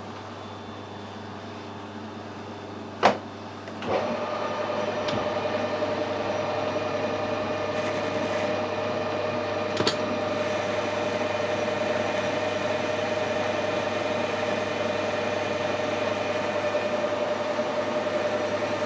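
Metal lathe switched on about four seconds in and running steadily with a constant hum. A single sharp knock comes just before it starts, and a small click comes later.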